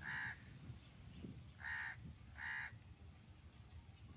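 A crow cawing: three short caws, one right at the start and two close together about two seconds in.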